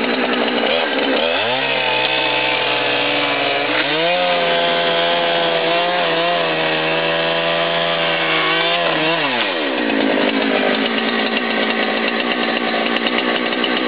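Two-stroke gas chainsaw cutting through a hot tub shell. The engine pitch sags under load about a second in, climbs back and holds steady through the cut, then drops away at about ten seconds, leaving a rougher running.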